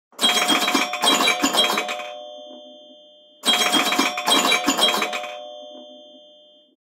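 Apple iPhone ringtone: a short, busy phrase of struck, ringing tones, played twice, each time ending in a few held tones that fade out.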